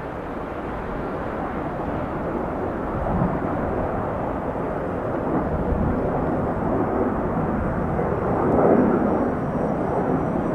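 Jet airliner noise from a Boeing 717-200 on arrival: a steady rushing engine sound that builds gradually to its loudest about eight and a half seconds in, then eases slightly.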